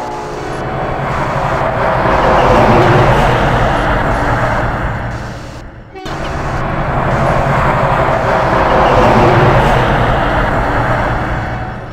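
A heavy vehicle passing, its engine drone and road noise swelling loud and fading away, twice, with an abrupt cut between the two passes.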